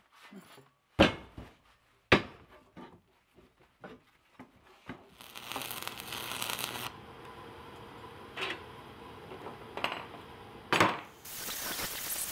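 A hammer strikes steel twice sharply, followed by light metal clinks. About five seconds in an arc welder starts crackling and hissing on the steel frame, and after a knock near the end an angle grinder with a flap disc starts grinding the steel welds.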